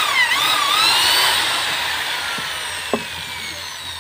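Handheld electric drill boring into a wooden block, its motor whine dipping and recovering in pitch as the bit bites. Then the trigger is released and the drill spins down with a slowly falling whine. A single click comes about three seconds in.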